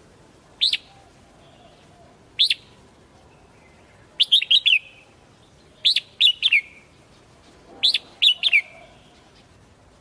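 Red-whiskered bulbul singing: two short single notes, then three quick phrases of three or four sharp, falling whistled notes each, a second or two apart.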